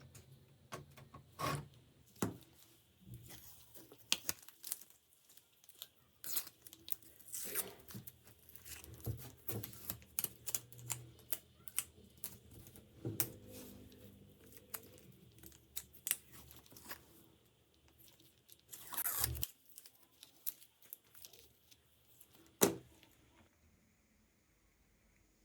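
Irregular clicks, taps and short scraping or rustling strokes from hand work on the pistol's parts, with a longer rasping stroke a little over three-quarters of the way through and a sharp click soon after, the loudest sound.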